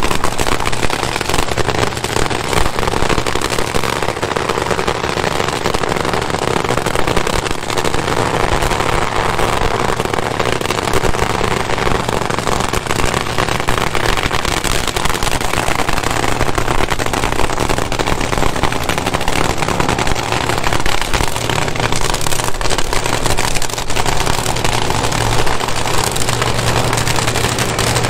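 Supercharged nitromethane-burning V8 drag-racing engine running loud, with a dense, rapid crackle and a steady low drone underneath in the second half.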